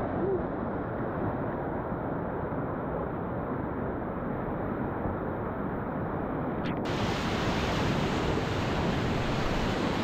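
Rushing whitewater of a river rapid as heard from a kayak, a steady noisy wash that sounds dull at first and turns brighter and fuller about seven seconds in.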